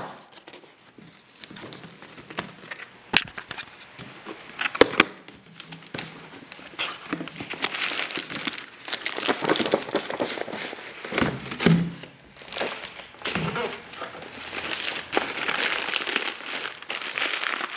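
Hand unpacking of a parcel: packing material crinkling and tearing, with scattered clicks and handling knocks. The crinkling gets busier and louder partway through.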